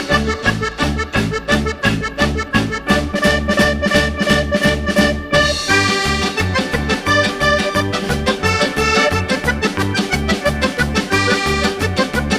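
Upbeat background music led by accordion over a steady bouncing bass beat.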